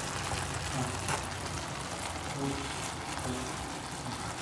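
Slotted wooden spatula stirring and scraping grated carrots cooking in milk and sugar in a metal pan, over a steady faint sizzle; the mixture is wet with the melting sugar.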